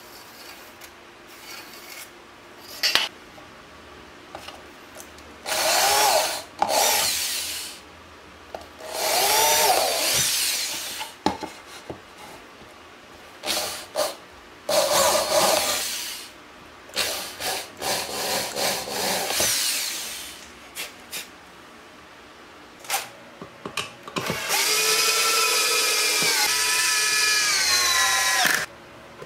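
Power drills working plywood: a corded electric drill boring holes in several short bursts, its motor pitch rising and falling with the trigger. Near the end a cordless drill drives a screw into the plywood in one longer run, its pitch sagging as the screw bites and then stopping abruptly. A few light clicks come before the drilling starts.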